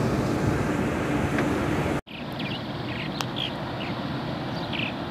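Steady low outdoor rumble of wind on the microphone and faint engine hum from passing river barges. About two seconds in it cuts off abruptly, then resumes quieter, with a few short bird chirps.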